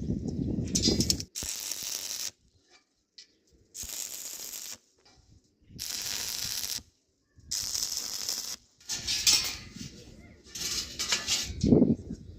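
Welding of iron bar in short bursts, each about a second long, with silent gaps between: a string of tack welds.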